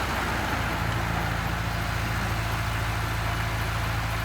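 Heavy vehicle's engine running steadily, a deep even hum that stays at one level.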